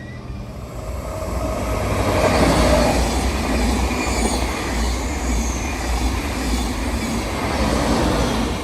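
Train passing close by on steel rails. The wheel and rail noise builds over the first couple of seconds, holds steady for several seconds with a few faint high squeals, then drops away near the end.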